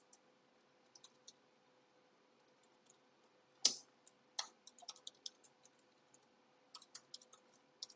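Computer keyboard being typed on: scattered, irregular key taps, with one louder knock about halfway through. A faint steady hum runs underneath.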